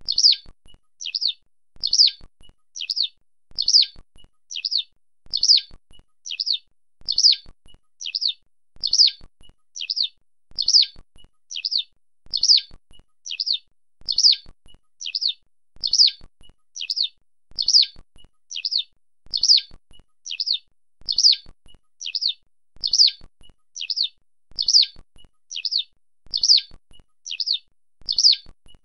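Eurasian skylark calling: short, high chirping notes in small groups, repeated evenly about every second and three-quarters.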